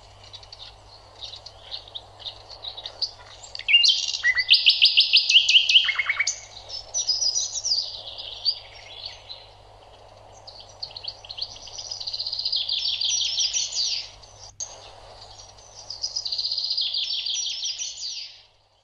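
Birdsong: a small bird singing fast, high trilled phrases in several bursts with short pauses between, cutting off suddenly near the end.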